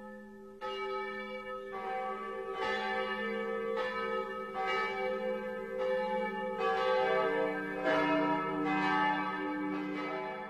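Church bells ringing, about one strike a second, several bells of different pitches ringing on and overlapping.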